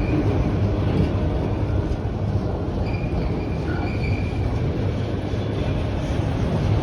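Autorack freight cars rolling past, a steady loud rumble of steel wheels on rail, with a few faint, brief wheel squeals.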